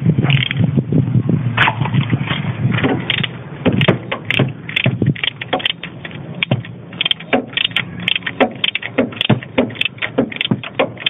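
Wrench working a 13 mm bolt on a car's accessory-belt tensioner: a string of short, irregular metal clicks and clinks, coming thicker from about four seconds in.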